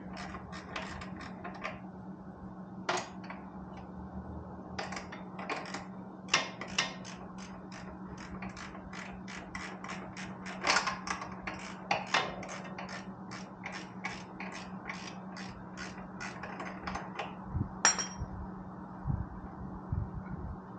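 Hand ratchet clicking in short runs of quick, even clicks as a bolt on a motorcycle's exhaust silencer clamp is turned.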